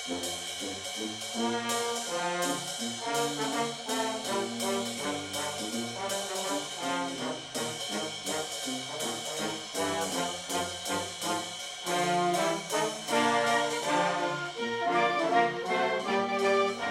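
Upbeat intro music with a brass section playing over a steady drum beat.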